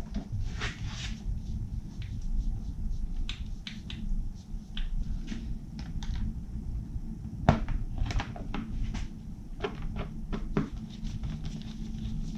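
Scattered light clicks and knocks of parts being handled as a dirt bike's fuel tank is fitted, with one sharper knock about halfway through, over a steady low hum.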